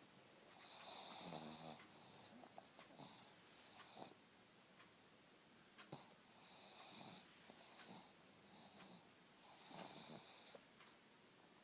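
A pug snoring and wheezing while awake: faint, rattly breaths with a high whistling note, the loudest about every three seconds. This is the noisy breathing typical of a flat-faced dog's narrow airway.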